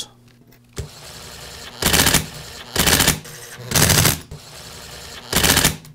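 Torx driver turning in the screws that secure the clutch and chuck assembly of a DeWALT cordless hammer drill: four short bursts, each about half a second long.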